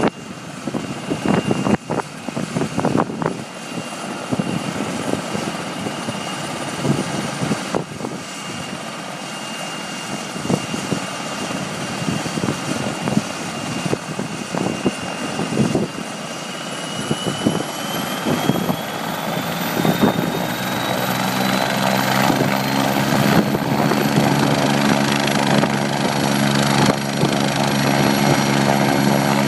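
Agusta A109 Power twin-turbine helicopter running up on the ground. A steady turbine whine rises in pitch about halfway through. After that the rotor's beat builds and grows louder as the rotor spins up.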